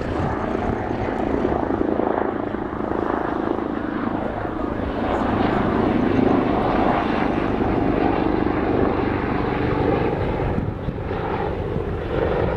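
Douglas DC-3's twin radial piston engines and propellers droning steadily as the airliner approaches head-on with its gear down.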